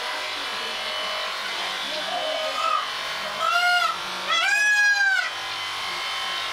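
Electric sheep shears running with a steady buzz as the fleece is clipped. About three and a half seconds in, an animal bleats twice, high-pitched, a short call and then a longer one, louder than the shears.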